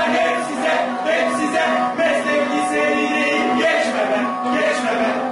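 Music played on bağlama and acoustic guitar, with male voices singing.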